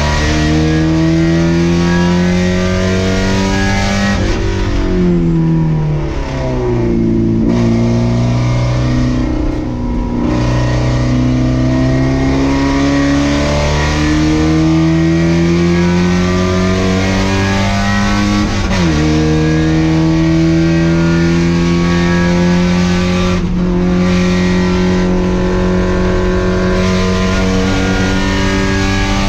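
Race car engine heard from inside the car, pulling hard under acceleration. About four seconds in, its pitch falls as the car slows, then it climbs again through a long rise. About two-thirds through, the pitch drops sharply at an upshift, and the engine then pulls steadily to the end.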